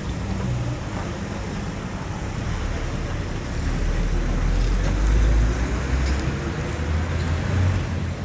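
Street traffic ambience: a steady wash of road noise, with a vehicle's low engine rumble swelling about halfway through and staying strong until near the end.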